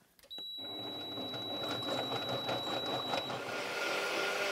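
Kenwood Cooking Chef kitchen machine's blender attachment starting up and blending a liquid pumpkin smoothie mix, its motor noise building steadily. A high steady whine over the first three seconds gives way to a lower motor tone.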